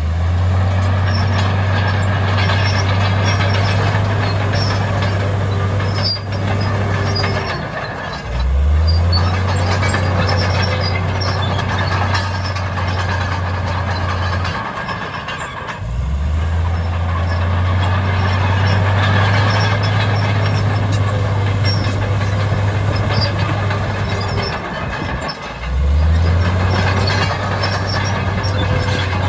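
Heavy earthmoving machine's diesel engine working under load. It drops back and revs up again four times, about every eight seconds, over a wide mechanical rumble.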